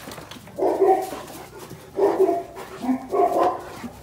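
Dogs barking during rough play: about four short barks, roughly a second apart.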